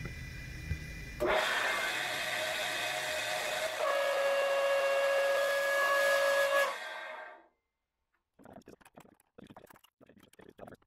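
Old pre-1970s Rockwell Delta wood lathe with its original motor, running with a low hum and then, about a second in, breaking into a loud, shrill squealing whine made of several steady pitches. This is the 'crazy noise' the old lathe made. The whine dies away after about seven seconds, and a few light clicks of handling follow near the end.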